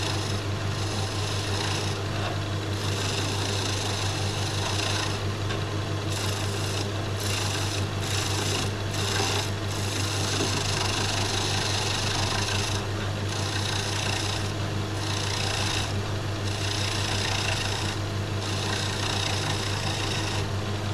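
Small wood lathe running with a steady low motor hum while a skew chisel cuts a spinning wooden spindle. The rough scraping cut breaks off briefly many times as the tool is lifted and moved along the work.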